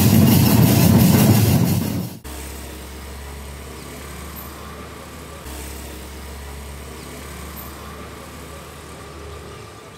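Loud music with drums cuts off suddenly about two seconds in. After it, a quieter steady low hum of street traffic follows, with a vehicle engine idling.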